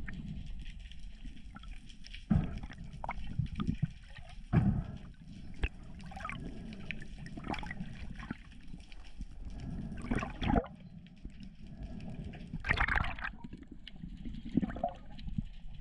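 Sea water moving around an underwater camera: a low rumble with irregular clicks, knocks and gurgles.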